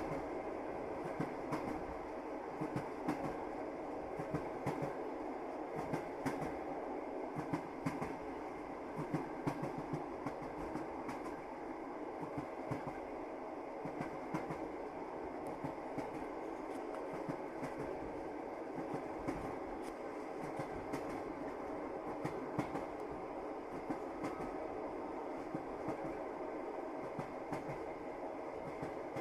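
Moving train's wheels clattering over rail joints, with irregular clicks over a steady rumble.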